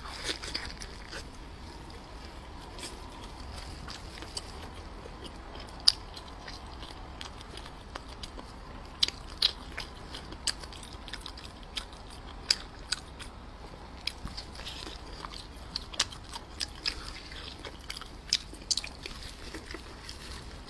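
Close-miked mouth sounds of biting and chewing a large steamed dumpling with an oily, savory filling: wet, sticky smacks and sharp clicks at irregular intervals, loudest about six seconds in.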